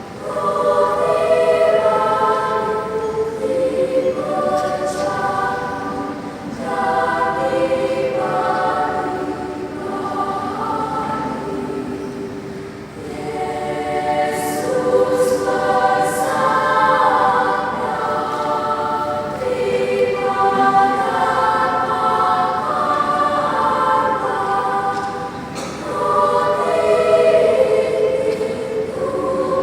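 Mixed children's choir singing in several voice parts, in long phrases with short breaks about halfway through and again near the end.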